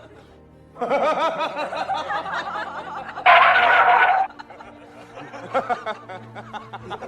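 Person laughing in a run of quick, wavering snickers, with a louder, higher shriek lasting about a second a little past the middle, then quieter chuckles.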